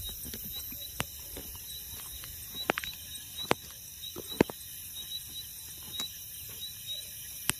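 Footsteps on a dry, grassy dirt path, heard as scattered sharp snaps and clicks, the loudest about four and a half seconds in, over insects chirping steadily in short, evenly repeated chirps.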